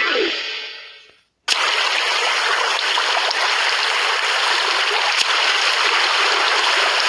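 Steady rushing of flowing stream water, cutting in abruptly about a second and a half in.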